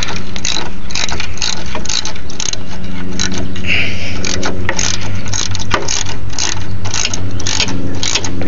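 Ratcheting wrench clicking over and over, about two clicks a second, as it loosens a bolt on a car's front frame, over a steady low hum.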